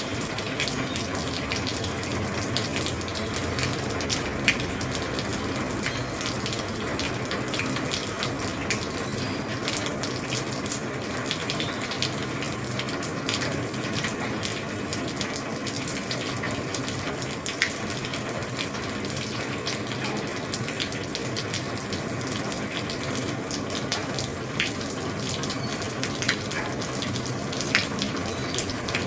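Heavy rain on an old roof: a dense, steady hiss of rain with many sharp individual drops ticking on the roof, a few of them louder than the rest.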